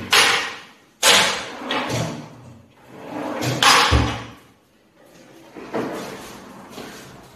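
Wardrobe sliding doors run along their track several times, each run a rushing slide of about a second. A dull thud comes about four seconds in as a door stops.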